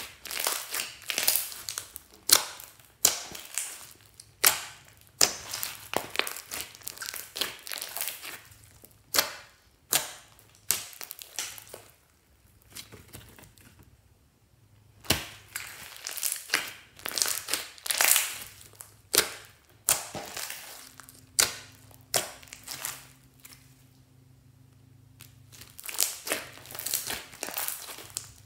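Glossy slime with small foam beads being stretched, folded and pressed by hand: sticky crackling and popping clicks in quick clusters, with a quieter spell near the middle and another after about three quarters.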